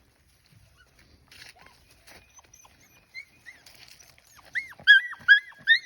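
Australian Shepherd puppies yelping in high-pitched, rising-and-falling cries, starting faintly about halfway through and turning into a loud, rapid string of yips, two to three a second, near the end.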